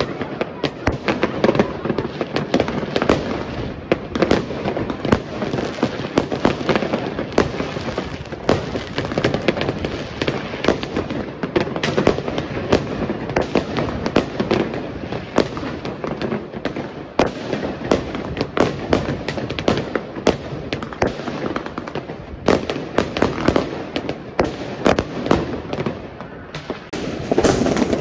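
Many fireworks going off at once: a dense, unbroken run of overlapping cracks and bangs with no pause.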